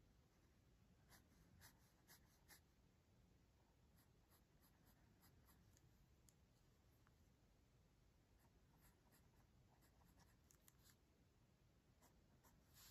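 Faint scratching of a Pentel EnerGize mechanical pencil's lead on paper in short, quick sketching strokes, with a cluster of sharper strokes a second or two in and another near the end.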